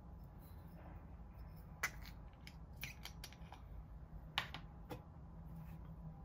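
Glass Hakushu whisky bottle being handled and its screw cap twisted off and set down: about ten sharp, irregular clicks and light knocks, the loudest about two seconds in and again just past four seconds.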